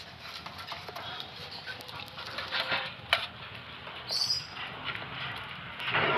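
Sun bear cub eating boiled egg from a metal tray: wet chewing and smacking with small clicks against the tray, a sharp click about three seconds in and a brief high-pitched sound about a second later.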